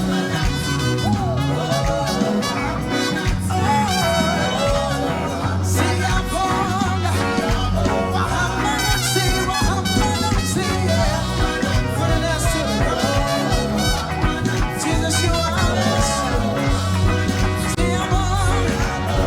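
Live praise-and-worship music: singing over a band with bass and drums keeping a steady beat.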